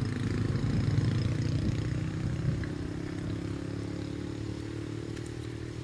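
A motor engine running steadily out of view, getting quieter from about two seconds in as it draws away.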